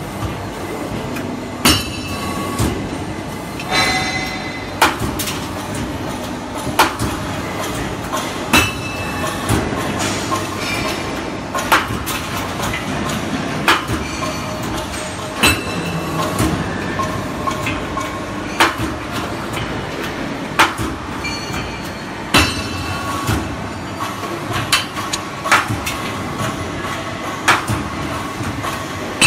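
Hydraulic angle-steel punching and cutting machine at work: a steady hum from the machine, with a sharp metallic clank that rings briefly about every two seconds as each stroke of the punch or cutter strikes the steel angle.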